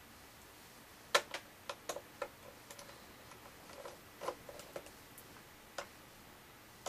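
Irregular small clicks and taps of a precision Phillips screwdriver working out the tiny screws that hold a laptop's LCD panel in its lid frame. The loudest click comes about a second in.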